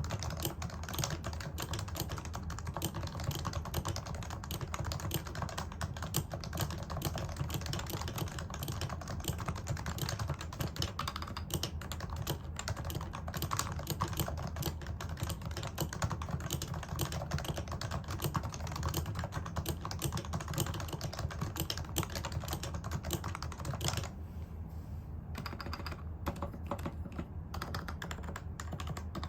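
HHKB Pro 2 keyboard being typed on steadily and fast, its stock Topre domes lubed with Tribosys 3204 giving a dense run of muted keystrokes on an ABS integrated plate. There is a short lull about five seconds before the end. The spacebar ticks, which the owner puts down to a lack of lube.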